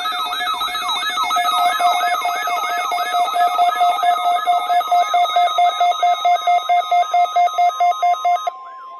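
Weather radio receiver alarms sounding together for the weekly tone alarm test. A rapid beeping at about four beeps a second and repeated siren-like rising and falling sweeps lie over a steady warning alarm tone. The beeping cuts off shortly before the end.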